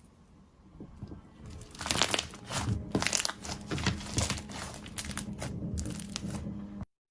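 Slime being squished, giving a run of crackling, popping clicks that starts about two seconds in and cuts off suddenly near the end.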